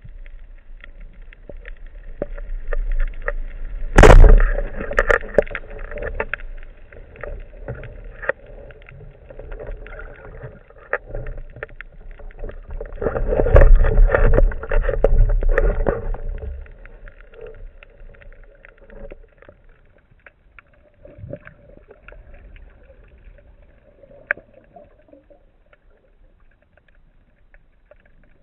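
Underwater sound through a diver's camera: steady crackling and clicking of the sea, with a single sharp crack about four seconds in as a band-powered speargun fires. Around twelve to sixteen seconds in comes a louder stretch of rushing water and knocks, and the sound then settles back to faint crackling.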